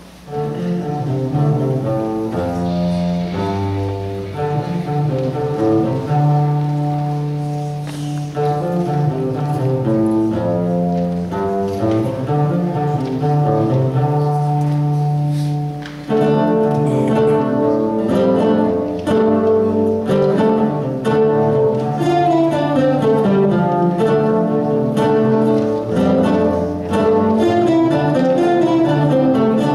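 A large guitar ensemble playing together: plucked melody lines over sustained low notes. The music briefly drops about halfway through, then comes back in fuller.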